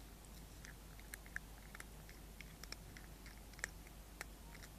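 A cat chewing a caught mouse: faint, irregular crunching and clicking, with a couple of sharper cracks.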